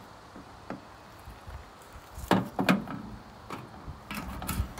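Knocks and plastic clatter of a fuel can and caps being handled while a chainsaw is refuelled, with two sharper knocks about halfway through and a few more near the end.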